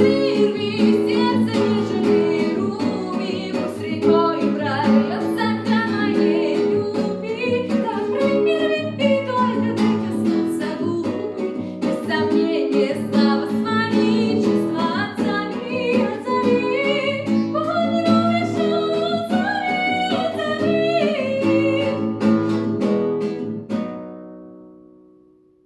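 Strummed acoustic guitar with a woman singing, the song ending about 24 seconds in on a final chord that rings out and fades.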